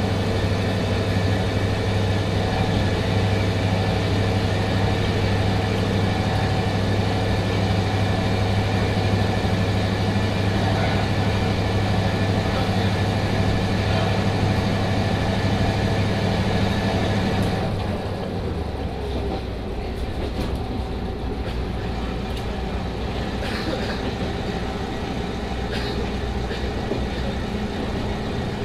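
Diesel railcar's DMH17C eight-cylinder diesel engine running under power with a steady low drone. About 18 seconds in it is throttled back and drops to a quieter, lower note, the railcar running on with its engine near idle. A few light clicks follow.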